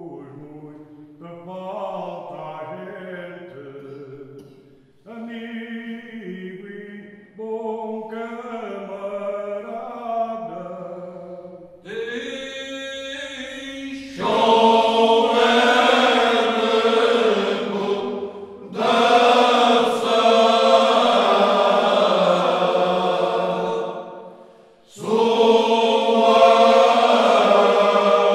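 Men's choir singing cante alentejano a cappella. The opening phrases are quieter, then the full group comes in loudly about fourteen seconds in, pausing briefly for breath twice.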